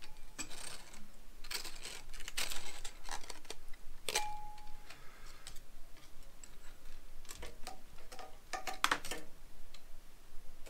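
A base gasket being worked up and off the cylinder studs of a Honda CB750 engine: light clicks and rustling, with one short ringing metal tap about four seconds in and a few sharper clicks near the end.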